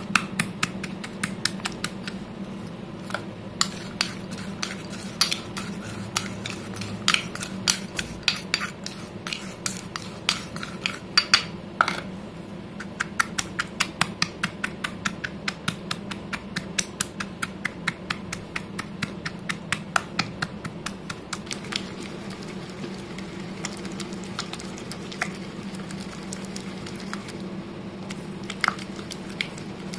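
Stone pestle pounding and grinding wet crushed slate pencil in a stone mortar: a quick run of sharp clicks and knocks, several a second, thinning out over the last several seconds.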